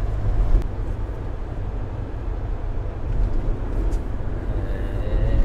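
Steady low rumble of a Toyota Hiace-based camper van cruising along an open road: engine and tyre noise heard from inside the cab.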